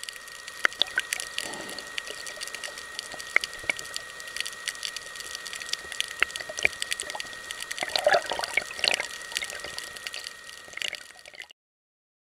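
Underwater water noise: a steady hiss full of sharp clicks and crackles, with a faint steady high whine under it and a louder, splashier stretch about eight to nine seconds in. It cuts off suddenly shortly before the end.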